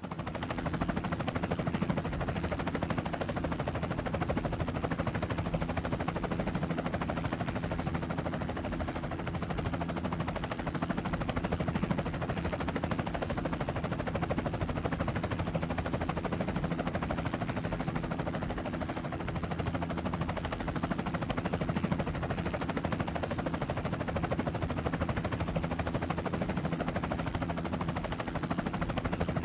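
Trophy truck's race engine held at high revs at full throttle, a loud, rapid pulsing exhaust note that stays steady in pitch and level throughout.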